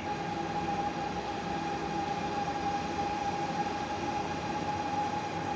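Steady machine noise with a constant high-pitched whine.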